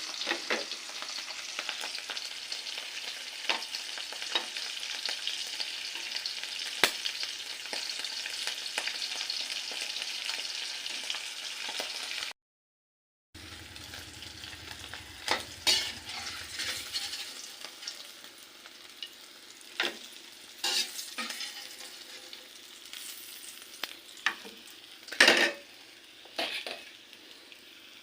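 Dried fish (tuyo) frying in oil in a pan: a steady sizzle with scattered clicks and scrapes of a spatula. After a brief cut the sizzle is fainter, with intermittent scrapes and knocks, one louder about 25 seconds in.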